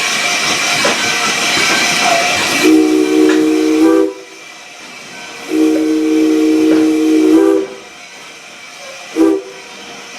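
Steam hissing loudly from a coal-fired 2-8-2 Mikado steam locomotive, then its chime steam whistle sounding a chord: two long blasts and a short one, the pattern of a grade-crossing signal.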